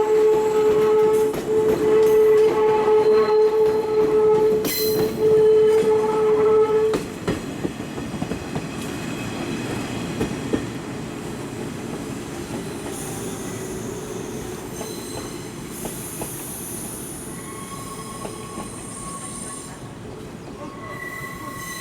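JR East 185 series electric train moving slowly out of a depot. For about the first seven seconds a loud steady warning tone sounds in long stretches with brief breaks; it then stops, leaving the quieter rolling of the train's wheels with thin, high-pitched wheel squeal.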